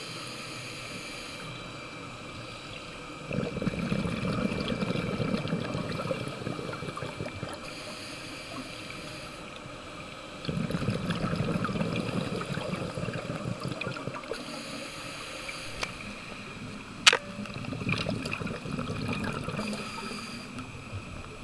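Scuba diver breathing through a regulator underwater: a short hiss on each inhale, then a longer burble of exhaust bubbles on each exhale, three breaths in all. A single sharp click comes about two-thirds of the way through.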